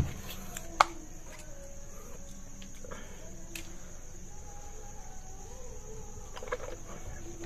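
Steady high-pitched chorus of insects, with a sharp knock about a second in.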